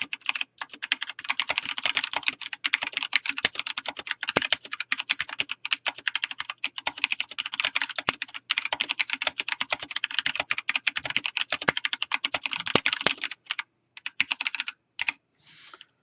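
Drevo Excalibur mechanical keyboard with Outemu Brown switches and DSA profile keycaps being typed on fast and continuously. The keystrokes thin out to a few last ones about three seconds before the end.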